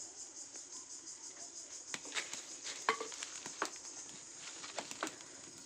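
Dry leaves burning in a clay cooking stove's firebox, crackling with scattered sharp pops that come thicker from about two seconds in, over a steady high-pitched hiss.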